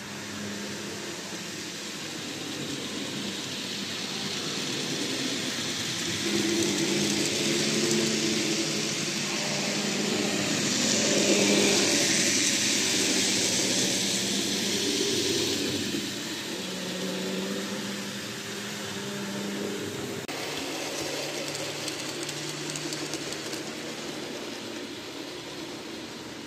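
N gauge model train running past: a pair of model diesel locomotives hauling container wagons, a steady motor hum with the hiss of wheels on the track. It swells to its loudest about halfway through and then fades.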